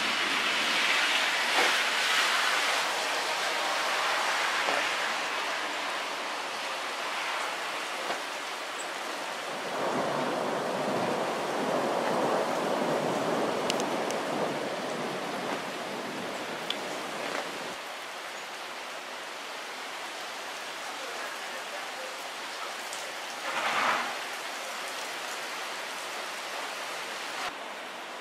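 Rain falling steadily in a thunderstorm, swelling louder at the start and again around ten seconds in, with a brief louder burst near the end.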